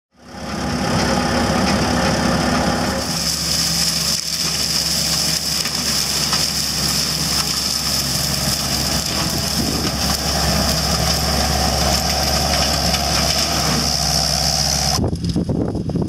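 Brown Brontosaurus forestry mower head spinning on a Cat 299C compact track loader, its diesel engine running under load as the head mulches brush: a steady machine drone with a high whine on top. The sound shifts abruptly about three seconds in and again near the end.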